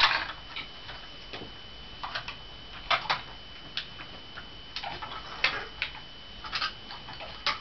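Irregular clicks and clacks of plastic toys being handled and knocked together, a second or so apart, with a faint steady high-pitched whine behind them.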